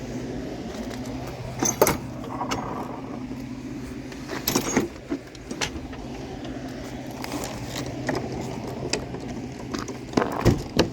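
Vehicle running steadily, a low, even engine hum, with scattered light rattles and jangling clicks over it.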